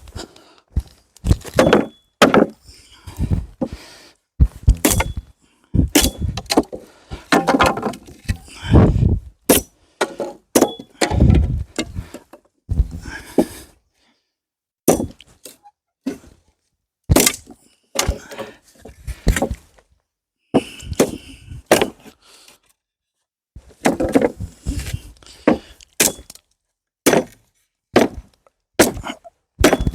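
Irregular series of sharp cracks and knocks with heavier thuds, coming in bursts of several a second, separated by a few abrupt silent gaps.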